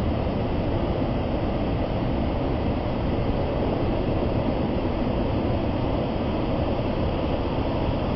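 Large waterfall pouring steadily: an even, deep rush of falling water with no breaks or changes.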